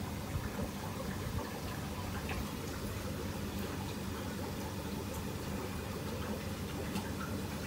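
Steady sound of water in a hatchery tank of black tiger shrimp post-larvae, with a few faint ticks.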